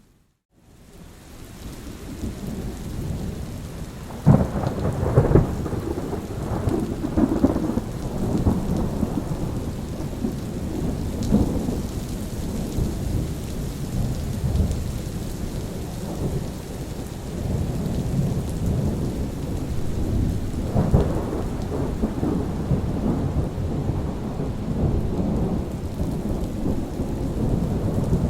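Steady rain with rolling thunder. The sound drops out for a moment at the start and swells back in; a thunderclap about four seconds in rumbles on for several seconds, and another peal of thunder comes about three quarters of the way through.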